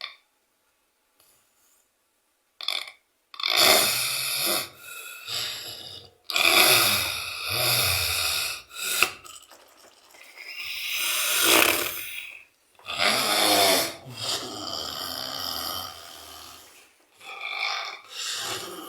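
A sleeping man snoring loudly like a pig: about six long snores, each one to three seconds, beginning about three seconds in after a near-silent start.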